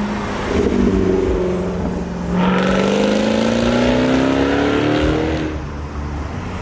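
A car engine accelerating hard: a lower engine rumble for the first couple of seconds, then the engine pulls up through the revs, its pitch climbing steadily for about three seconds before it eases off.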